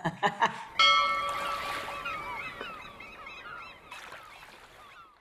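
Studio logo sting: a bell-like tone struck once about a second in, ringing and fading away over about four seconds, with a flurry of bird calls over it.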